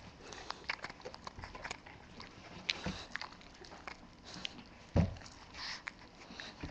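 Bulldog puppy chewing dry kibble: irregular small crunches and mouth clicks, with one louder thump about five seconds in.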